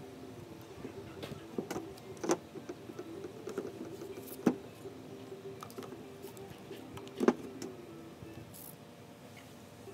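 Rigid PVC pipe fittings being twisted together during gluing and set down on a table, with a few sharp plastic knocks and clicks, the loudest about two, four and a half, and seven seconds in. A steady low hum runs underneath.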